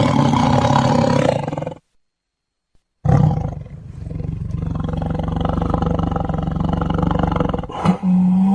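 Loud animal calls: a short stretch, a second of silence, then a long call held at a steady pitch for several seconds.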